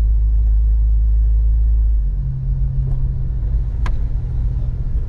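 Low rumble of a car's engine and tyres, heard from inside the cabin as the car rolls slowly forward. About two seconds in, the deep drone drops and a steadier hum comes in. A single short click sounds near the end.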